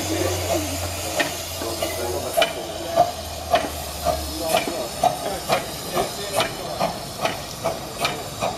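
Miniature 15-inch-gauge steam locomotive pulling away, its exhaust chuffing about twice a second and quickening slightly as it gathers speed, over a steady steam hiss.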